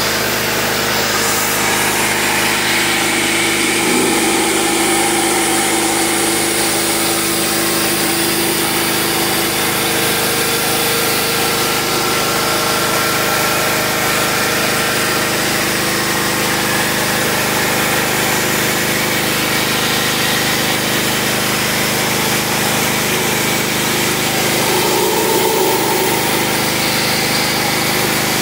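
Pressure washer running steadily, its water spray hissing under a rotary surface-cleaner attachment as it is pushed across a camper's fibreglass roof.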